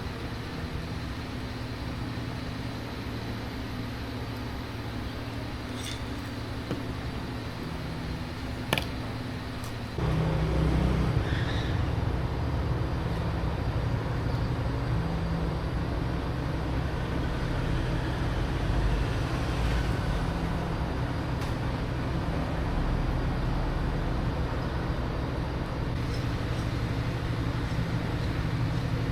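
A workshop machine running steadily, with a sharp click a little before it grows louder and deeper about a third of the way in, then running on steadily.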